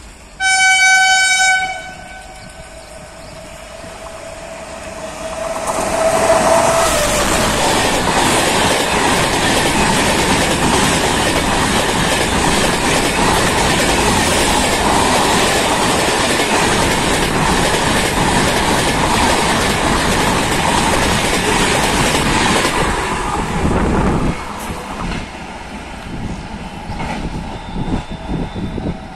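Passenger express hauled by a WAP-7 electric locomotive running through a station at about 130 km/h without stopping: the locomotive's horn sounds once, loud, about half a second in. From about six seconds the train passes close by as a loud, steady rush of wheels and coaches that cuts off sharply near 24 seconds, leaving a fading rumble as the train recedes.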